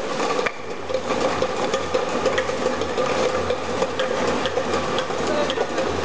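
Automatic plastic-bottle unscrambler and its conveyor running: a steady motor hum with a constant tone, and frequent light, irregular clicks of plastic bottles knocking along the line.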